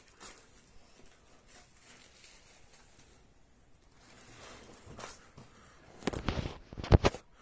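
Faint rustling and handling noise, then a few loud, deep bumps and rubs near the end as the recording phone or camera is handled.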